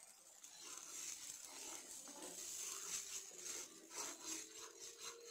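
Thin sauce simmering in a non-stick pan with a faint steady hiss; from about halfway a metal slotted spoon stirs it, scraping the pan in quick repeated strokes. A steady low hum comes in at about the same time.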